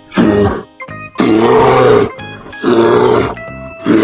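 Bear growling in three long, rough calls, over light background music.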